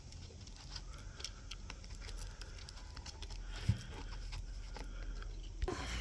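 Hands handling a laptop screen and its cable connector: faint scattered clicks and light rustling, with one sharper knock about three and a half seconds in.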